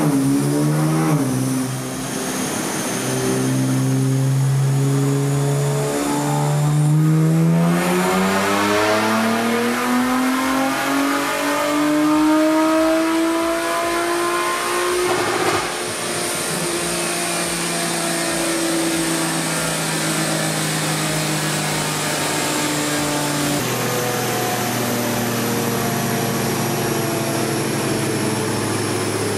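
2023 Nissan Z's 3.0-litre twin-turbo VR30 V6 running on a chassis dyno: a pull in which the engine note climbs steadily for about nine seconds, breaks off abruptly about halfway through, then settles to a steadier, lower running note.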